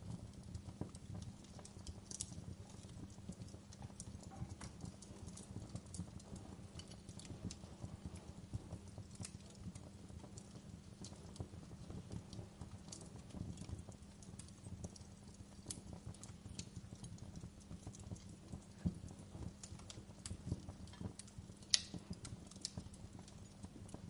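Wood fire burned down to glowing embers, crackling with irregular small pops and snaps over a steady low hum. Two louder pops come a little over two thirds of the way through.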